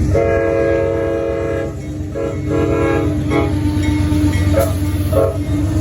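Train horn sounding several notes together: one long blast of about a second and a half, then several short blasts and two brief toots near the end. A steady low rumble of the train runs underneath.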